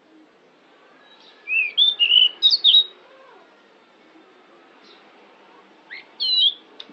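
Pied bushchat (decu) singing: a quick burst of chirpy, twisting notes about a second and a half in, then a short sweep and one curled whistled note near the end.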